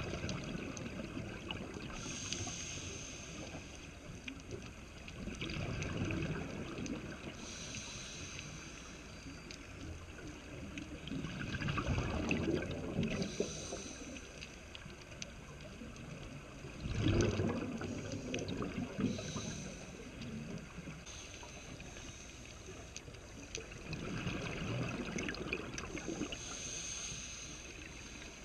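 Scuba regulator breathing heard underwater: a hiss on each inhalation and a rumbling gurgle of exhaled bubbles, repeating every five or six seconds.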